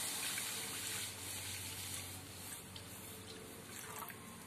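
Milk pouring from a bowl into a wide pan of milk: a splashing gush that thins to a trickle and fades.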